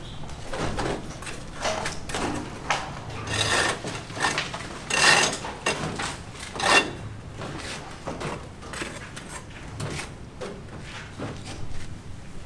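Building-site work sounds: irregular knocks and clatters of materials and tools, with short bursts of scraping, the loudest about five and seven seconds in.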